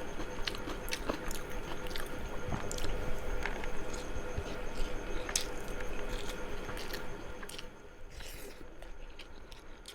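A person chewing mouthfuls of chicken biryani with boiled potato close to the microphone: wet, squishy chewing and lip smacks with scattered sharp clicks. It gets quieter about seven and a half seconds in.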